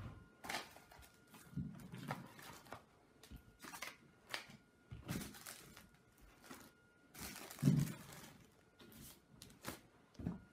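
Phone packaging handled on a tabletop: a cardboard box and clear plastic wrapping picked up, moved and set down, giving scattered light knocks and crinkles, the loudest a little under eight seconds in.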